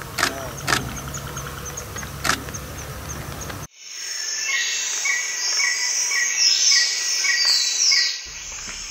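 Forest ambience of insects and birds chirping. A low hum and a few sharp clicks sit under faint, evenly repeated high chirps at first. After a sudden cut about three and a half seconds in, louder regular chirping and trilling runs until shortly before the end.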